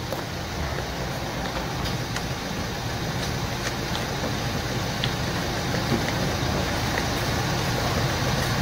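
Small two-stroke chainsaw engine, a Tanaka ECS-4000, running at a steady idle after its carburetor was cleaned and fitted with a new diaphragm.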